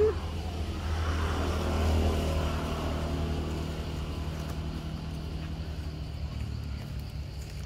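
A motor vehicle passing, swelling to its loudest about two seconds in and then fading, over a steady low rumble. A short sharp sound comes at the very start.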